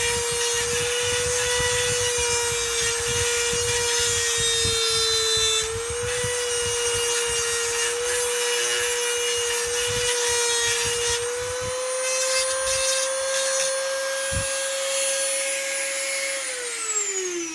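Dremel rotary tool grinding down the rakers (depth gauges) of a Husqvarna C85 chainsaw chain, lowering them to turn a crosscut chain into a milling chain. Its motor whines at a steady high pitch over a grinding rasp, with short scraping contacts. Near the end it is switched off and the whine falls away.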